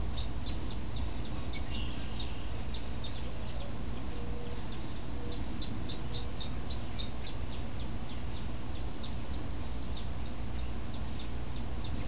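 Juvenile downy woodpecker giving begging calls: short, high notes repeated about three times a second, with a quicker run of notes near the end. A steady low rumble sits underneath.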